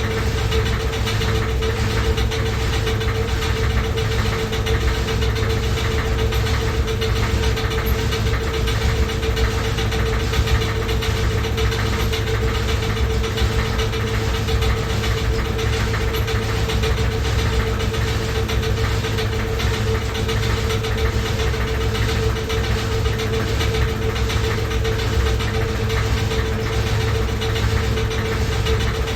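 Washing machine running loudly: a steady hum with a low rumble and a fast, even knocking rattle that does not let up.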